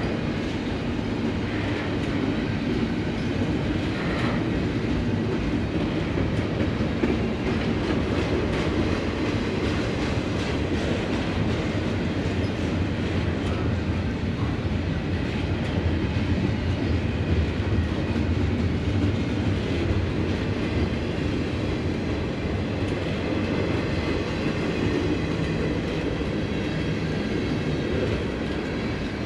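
Norfolk Southern freight train rolling steadily past, a continuous low rumble of the cars with the clickety-clack of wheels over the rail joints.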